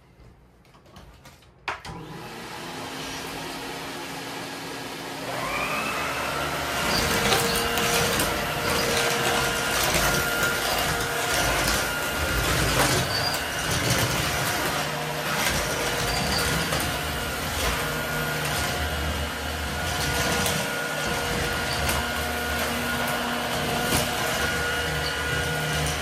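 1960s Electrolux canister vacuum cleaner switched on with a click about two seconds in, its motor running up. A rising whine joins about five seconds in, and the cleaner then runs steadily and loudly while its power nozzle is pushed over the floor, with scattered clicks and knocks.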